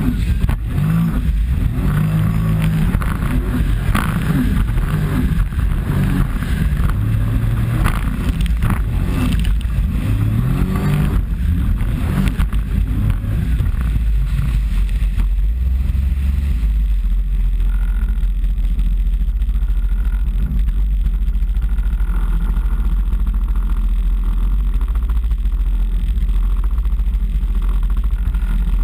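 Personal watercraft engine running at speed over choppy water. Its pitch rises and falls with the throttle through the first half, then holds a steadier low drone. Water splashes against the hull, mostly in the first half.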